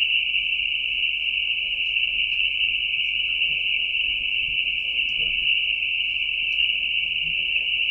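A loud, steady high-pitched whine that never breaks or changes, with a few faint clicks.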